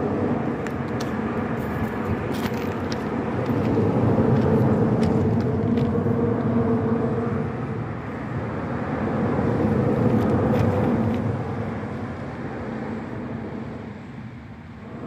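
Road traffic: motor vehicles going by, the sound swelling and fading twice, around four and ten seconds in.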